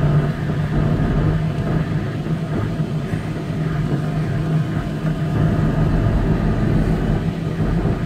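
Cabin noise of an old Ford Explorer 4x4 driving on a snow-covered, unplowed road: a steady engine hum over a low rumble of its mud tyres and the road.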